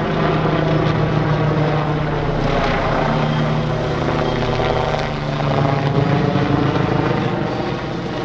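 Steady engine drone of display aircraft in flight: a Bölkow Bo 105 helicopter and a Zivko Edge propeller aerobatic plane flying together, the note drifting slightly in pitch.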